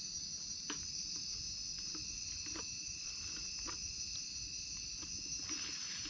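Steady night chorus of crickets and other insects: a continuous high trill, with a few faint clicks scattered through it.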